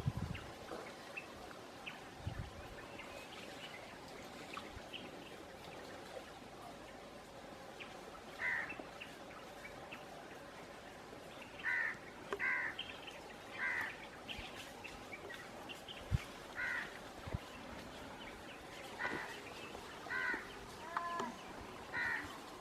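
Crows cawing outdoors: short, repeated caws, sparse at first and coming every second or so from about a third of the way in, over faint steady rural background noise.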